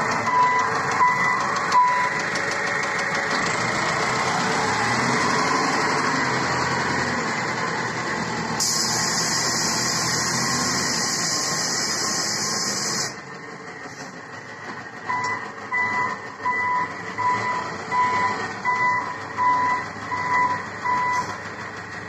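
Self-loading concrete mixer truck's diesel engine running as it drives, with its warning beeper sounding about two beeps a second at the start and again from about 15 seconds in. A steady hiss comes in for about four seconds midway, and the engine gets quieter after it stops.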